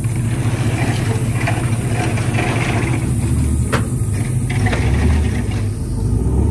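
Truck engine running with a steady low rumble, which shifts in pitch about five seconds in. There is a single sharp click about halfway through.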